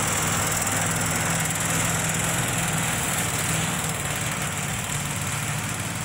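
Small four-stroke engine of a motorized snow tow unit running steadily under load while towing a rider, a steady low drone with a high hiss on top. It eases off slightly near the end as the machine moves away.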